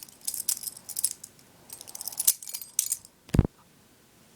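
Butterfly knife being spun and flipped in the hand, its metal handles clicking and rattling against the blade and pivots in quick irregular bursts. About three and a half seconds in comes a single dull thump.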